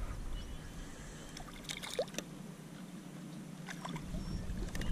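Small splashes and trickling water at the side of a small fishing boat as a little bass is let go by hand, with a few light clicks and knocks. A low rumble comes in near the end.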